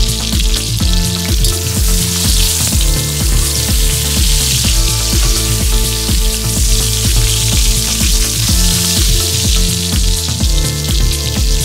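Hot oil sizzling and crackling steadily in a steel wok as pointed gourd (potol) pieces shallow-fry.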